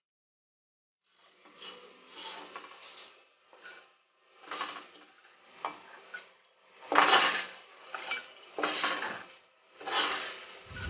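Wooden spatula scraping and stirring dry-roasted whole spices and seeds around a nonstick wok: a string of short scraping strokes with pauses between them, beginning about a second and a half in and loudest past halfway.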